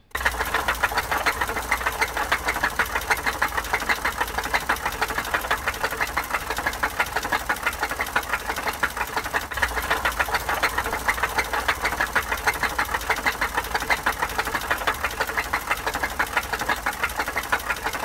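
Car engine running with a fast, even knocking from its bottom end: rod knock, typical of damaged crankshaft or connecting-rod bearings. It is heard close up beneath the engine.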